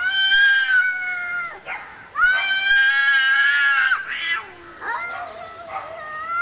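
Cat yowling aggressively: two long drawn-out calls of about two seconds each, then shorter ones, with another starting near the end.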